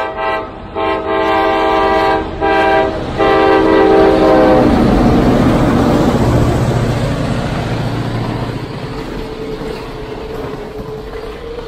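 Diesel F-unit locomotive's air horn sounding a long, long, short, long pattern, the grade-crossing signal, as the train approaches. About four and a half seconds in the locomotive passes with a loud diesel rumble, then the passenger cars roll by with wheel clatter on the rails, easing off, and a steady whine comes in near the end.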